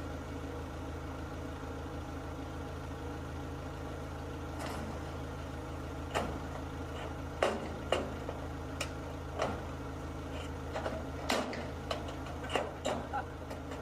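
Engine idling steadily under everything. From about four seconds in, a run of sharp knocks and clanks comes at irregular intervals, which is metal sheeting being pried off an old barn wall.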